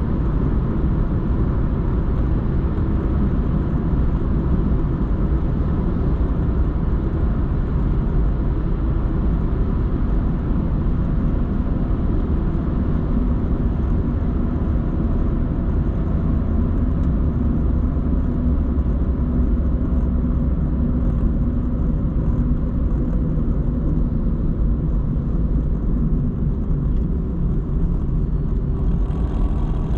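Car driving, heard from inside the cabin: a steady low rumble of tyres and engine.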